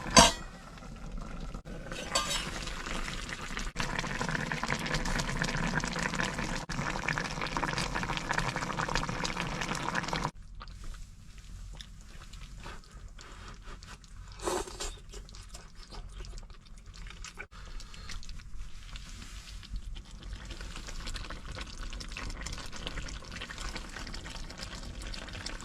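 Food cooking in a pan, sizzling and being stirred, with a clink of utensils. The sizzling is loudest for the first ten seconds, then drops off suddenly to a quieter simmer.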